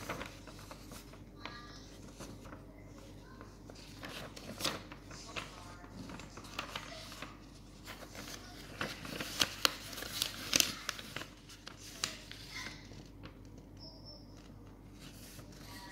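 Sheet of 80 gsm Samson kraft paper handled by hand, rustling and crackling as it is lifted, flexed and folded over, with the loudest crackles about nine to eleven seconds in.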